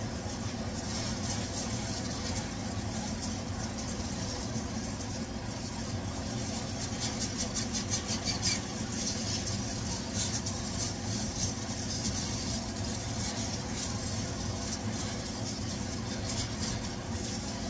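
Pieces of food sizzling in a hot nonstick wok while a silicone spatula stirs them, with a run of small scrapes and taps about halfway through. A steady low hum sits underneath.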